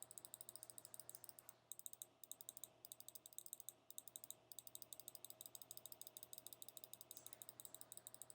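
Faint, rapid train of small sharp clicks, about nine or ten a second, broken by a few short pauses in the first half.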